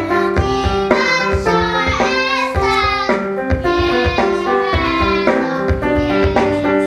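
Music with piano, a steady beat and a singing voice.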